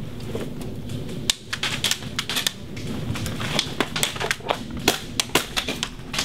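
Airsoft guns firing single shots: a quick, irregular run of sharp snaps, several a second, starting about a second in.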